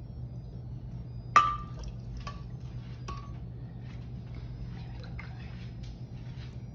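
Metal ladle clinking against a glass blender jar while coquito is ladled in: three sharp clinks with a brief ring, the first and loudest about a second and a half in, with a few fainter taps between, over a steady low hum.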